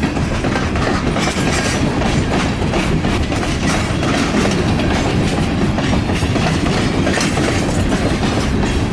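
CN freight train cars rolling past, steel wheels clicking over the rail joints in a steady clickety-clack, with strong wind buffeting the microphone.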